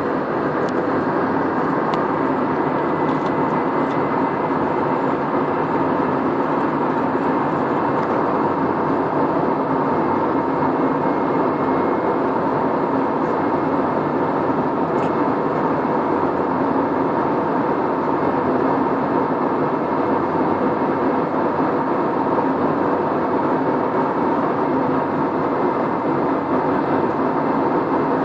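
Steady airliner cabin noise in flight: an even rush of engine and airflow noise with a faint constant hum.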